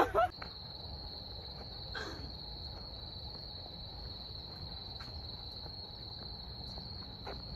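Crickets trilling in one steady, high-pitched, unbroken tone, with a faint low rumble beneath.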